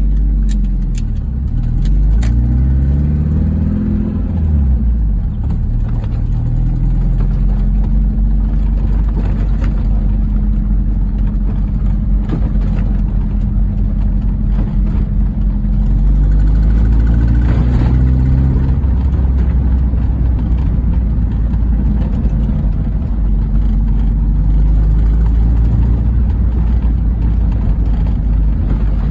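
1998 MG F VVC's 1.8-litre K-series engine idling, briefly revved twice, about two seconds in and again after about sixteen seconds. It runs with the ticking and squealing of an exhaust leak, which the owner traced to loose exhaust manifold bolts.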